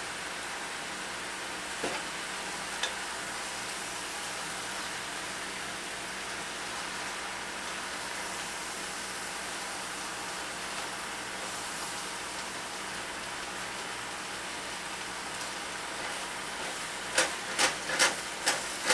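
Mushrooms and garlic frying in oil in a skillet under a heap of fresh spinach leaves, a steady sizzle. A couple of light clicks about two seconds in, and a quick series of sharp knocks near the end as a wooden spoon turns the leaves against the pan.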